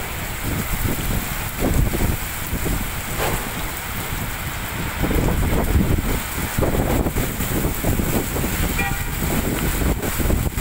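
Heavy rain pouring onto a flooded street, with gusts of wind buffeting the microphone in uneven low rumbles. A short car-horn toot sounds near the end.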